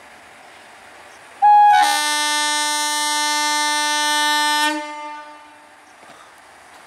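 Indian Railways WAP-4 electric locomotive horn blown in one long blast of about three seconds, starting with a brief lower note before settling on its full chord, then dying away, over the low rumble of the approaching train.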